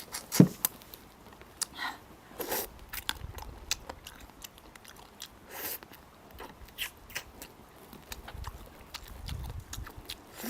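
Eating sounds: biting and chewing, with many small scattered clicks and one sharper knock about half a second in.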